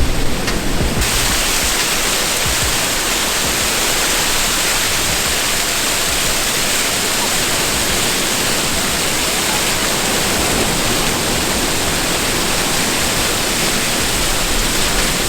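Waterfall crashing down onto the beach: a steady, even rush of falling water that sets in abruptly about a second in.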